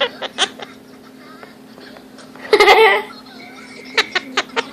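Quaker parrot laughing, one loud burst about two and a half seconds in, with sharp clicks before and after it.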